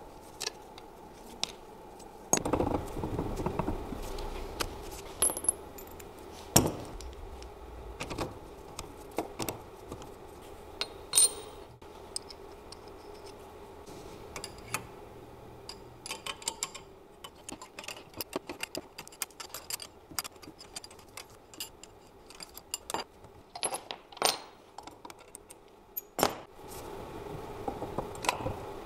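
Metal clinks and clicks as hand tools and car alternator parts are handled and knocked together during disassembly, with a longer, rougher scraping noise about two and a half seconds in.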